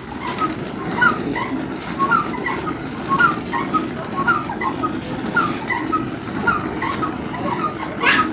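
Hand-turned rice-husking mill being worked with a long wooden push pole: a steady grinding rumble of grain in the mill, with short squeaks about twice a second from the wooden pole joints and crank. A sharp knock near the end.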